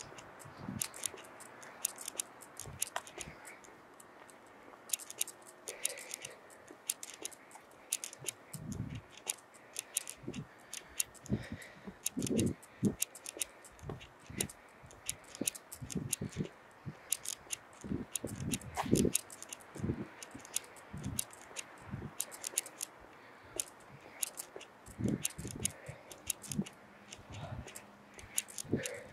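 Footsteps on a concrete sidewalk: a continual run of small gritty clicks and scuffs, with scattered dull low thumps.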